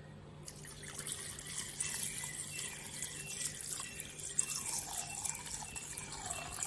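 Palm sap (padaneer) poured in a steady stream from a steel pot into a cloth strainer, splashing and trickling through the cloth; the pour starts about half a second in.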